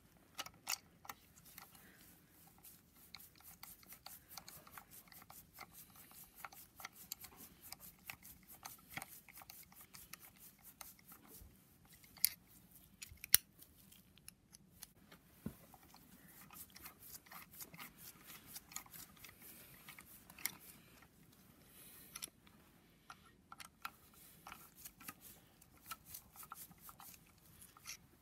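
Hand ratchet clicking in quick, quiet runs as the vacuum pump's mounting bolts are run in on a BMW N54 engine, with a couple of sharper metal clicks around the middle.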